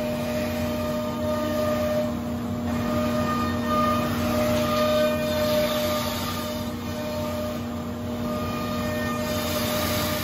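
Anderson Selexx 510 CNC router's 12 HP HSK spindle routing parts out of a sheet: a steady whine of several tones over the rush of cutting and dust collection, growing a little louder in the middle.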